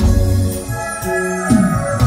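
Live band music: an electronic keyboard holds organ-like chords while the drums drop out, and a low note slides down about one and a half seconds in.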